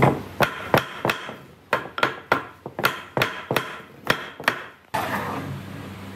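Wooden mallet knocking on the edge of a pine tabletop panel, about a dozen sharp, uneven blows over four seconds to drive the edge-joined boards tight and flush. The blows are followed by a short scraping sound as a board slides across the workbench.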